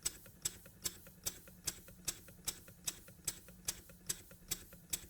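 Jowitt Major poppet-valve steam engine running slowly on compressed air, ticking in a steady rhythm of about two and a half sharp beats a second with a softer tick between each.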